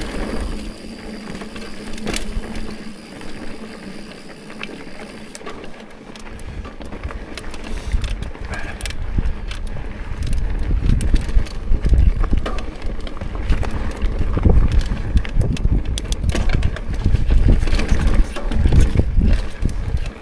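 Mountain bike riding a dirt and rock trail: wind rushing over the microphone and the tyres rolling, with frequent clicks and rattles from the bike. It gets louder about six seconds in.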